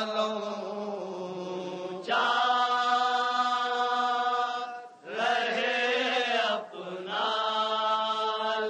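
A man's voice chanting an Urdu noha, a Shia lament, in long drawn-out phrases. Each line is held for two or three seconds, over a steady low hum.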